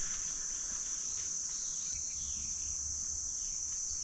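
Steady, high-pitched chorus of insects singing without a break, with faint chirps beneath it.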